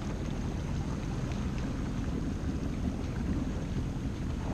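Steady low rumble of a boat out on the sea, with wind buffeting the microphone.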